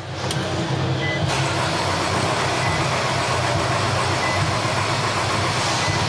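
Starter motor cranking the 2014 Nissan Rogue's 2.5-litre four-cylinder engine, steady and without catching. It starts about a third of a second in. The car has a no-start condition, and the fuel pump is the suspect.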